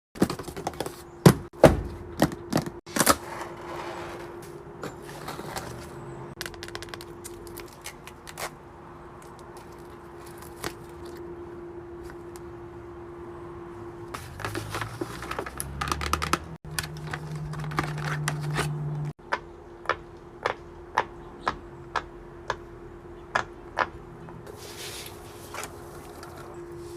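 Sharp clicks and taps, irregular and loud at first, then settling into even clicks about two a second in the second half, over a steady low hum.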